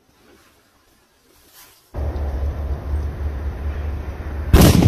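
Retorno 100 firecracker going off: a loud rushing noise sets in suddenly about two seconds in, then a loud bang comes near the end.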